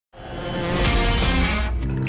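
Intro music opening with a rising whoosh that swells from silence for about a second and a half, then cuts off near the end, leaving bass notes as the beat is about to start.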